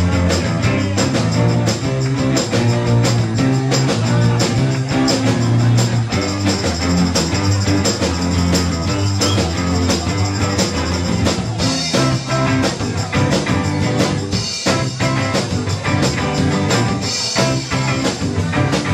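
Live band playing rock music with electric guitars, bass and a steady drum beat.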